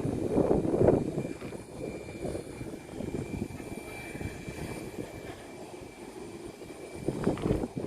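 Fixed-wing airplane engine running, an uneven rumble that swells in the first second and again near the end, with a faint steady high whine over it.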